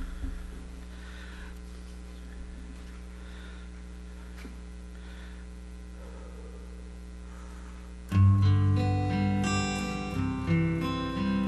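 Steady electrical hum from the sound system, then about eight seconds in an instrumental accompaniment track starts suddenly, with a strong bass line under it.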